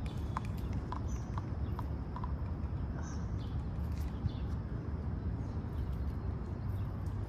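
Outdoor background: a steady low rumble with a few faint high bird chirps, and a regular run of soft ticks about twice a second that stops about two seconds in.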